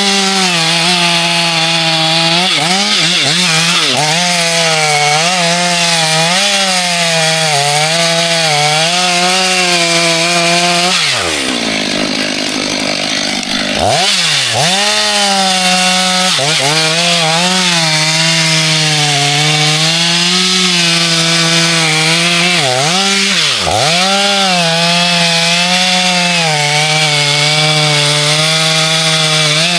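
Two-stroke chainsaw running at high revs as it cuts into a large tree trunk, its pitch dipping and recovering again and again as the chain bogs under load. About eleven seconds in, the engine falls away to a low idle for a couple of seconds, then revs back up and cuts on.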